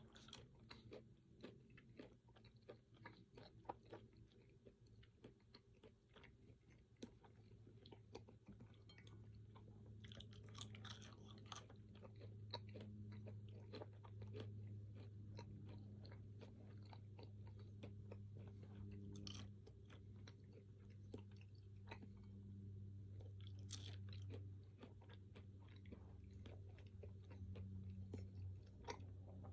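A person chewing and biting food close to the microphone: soft wet chews with small crisp crunches, as from fruit or pecans. A low steady hum comes in about seven seconds in and stays under the chewing.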